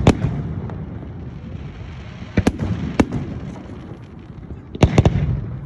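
Fireworks salute going off: sharp bangs in groups, one at the start, three around the middle and three in quick succession near the end, over a steady low rumble of further shells.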